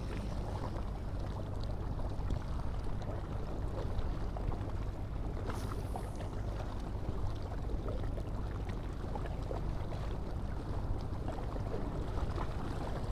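Steady wind on the microphone and water lapping against the stone edge of a jetty, a constant low rumbling hiss.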